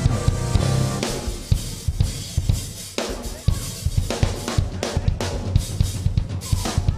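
Music led by a busy drum kit: fast bass drum and snare hits with cymbal wash, with some pitched instrument or voice notes underneath.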